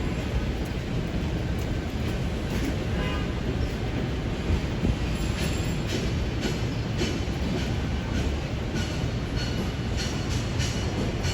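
City street noise: a steady low rumble with scattered clicks and clatter throughout.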